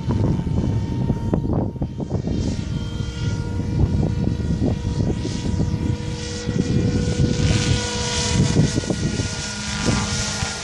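SAB Goblin 500 electric RC helicopter in flight, its Xnova 1200kv motor and rotors giving a steady whine, over wind buffeting the microphone.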